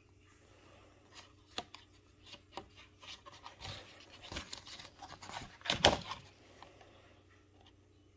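Paper hang tag and cardstock card being handled by hand: rustling and scraping with scattered sharp clicks, loudest about six seconds in.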